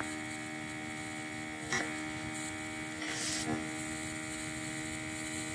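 Steady low electrical hum and buzz made of several fixed tones, with a faint click a little under two seconds in and a brief soft hiss about three seconds in.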